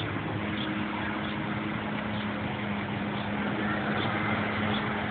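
Robotic lawnmower's motor running steadily with a constant hum, over a wash of outdoor noise.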